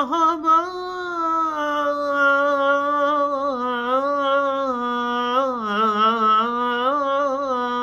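A man singing a Turkish Ramadan hymn (ilahi) unaccompanied, holding one long, ornamented note. The pitch slowly sinks and wavers in small melismatic turns.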